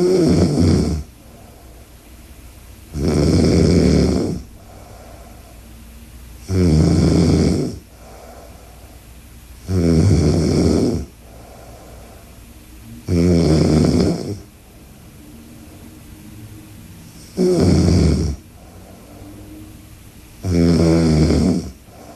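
A woman asleep on her side snoring loudly. Seven snores, each about a second long, come every three to four seconds, with much quieter stretches between them.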